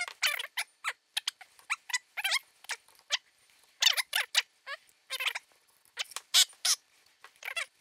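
Quick, irregular squeaks and scrapes of the Behringer T1 tube microphone's metal body tube rubbing against its internal chassis as it is slid off and back on by hand, several short squeals a second.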